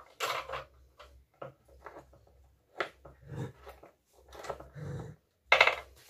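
Irregular clicks, knocks and scrapes of a plastic dustpan's handle socket being worked by hand and tool to pick out the broken pieces of the old wooden handle, the loudest knock about five and a half seconds in.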